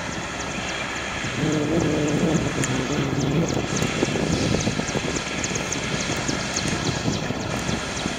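Airbus A319's CFM56 jet engines at takeoff power as the airliner accelerates down the runway and rotates. A steady broad jet rumble, with a low droning tone for a couple of seconds about a second and a half in.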